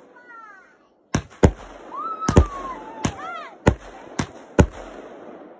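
Aerial fireworks launching and bursting: about seven sharp bangs come in quick, uneven succession, starting about a second in.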